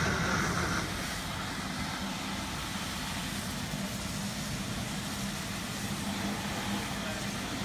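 A steady motor drone under a constant rushing hiss.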